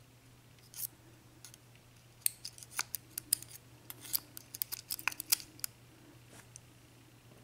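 Small sharp metal clicks and ticks as the top pin and spring are worked out of a chamber of a Dorma 7-pin mortice cylinder lock. There is a single click a little under a second in, then a quick run of clicks for a few seconds in the middle.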